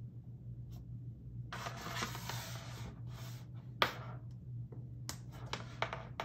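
Hands handling an iPhone and its USB-C to Lightning cable on a tabletop: about a second and a half of rubbing and scraping, then a sharp click a little under four seconds in as the Lightning plug goes into the phone's port, followed by a few lighter clicks and taps.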